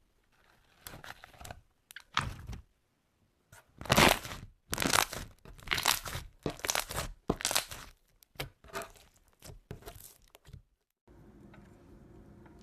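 Slime being pressed and squeezed, a run of short noisy squishes and crackles, the loudest about four seconds in. They stop near the end, giving way to a steady low hum.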